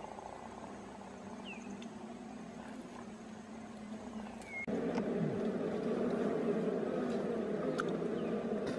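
Bees buzzing at a nest in the ground, a steady drone that gets suddenly louder about halfway through as the comb is laid open.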